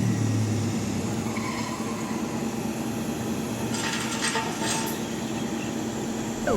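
Heavy construction machinery running steadily, with a few brief sharper noises about four seconds in.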